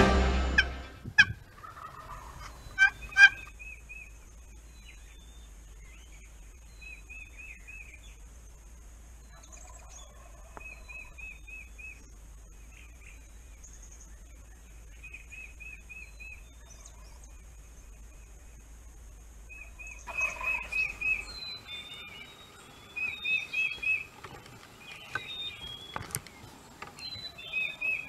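Wild turkey gobbling, with two loud gobbles about one and three seconds in, then fainter gobbles every few seconds. Small songbirds chirp in the last third.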